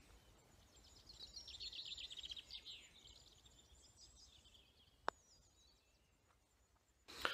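Faint birdsong, a quick run of chirps for a couple of seconds, then about five seconds in a single sharp click of a putter striking a golf ball.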